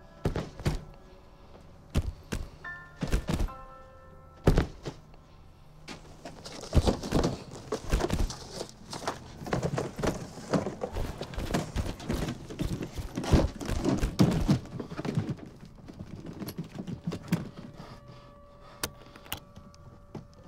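Objects being shifted and rummaged through on attic shelves: scattered knocks and thumps, then several seconds of dense clattering and scraping, and a couple of sharp clicks near the end as an old suitcase is handled. Soft music plays under it, with a few spaced notes early and a held tone near the end.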